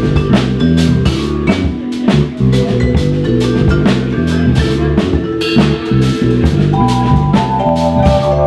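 Instrumental jazz-rock played live by a vibraphone, electric bass guitar and drum kit. Mallet notes ring over a walking bass line and a busy, steady drum groove, with a new higher vibraphone chord entering about two-thirds of the way through.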